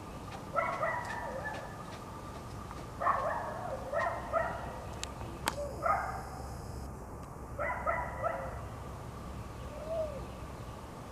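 American black bear cubs calling: short, high, crying calls, sometimes one alone and sometimes two in quick succession, repeated every second or two. The last calls near the end are fainter.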